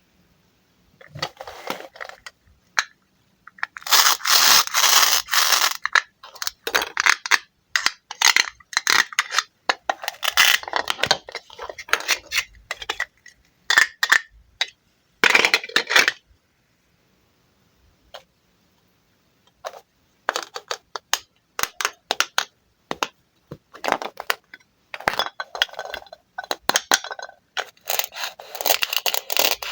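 Knife cutting wooden toy fruit: bursts of crisp scraping and crackling, a few seconds each, with short pauses between them.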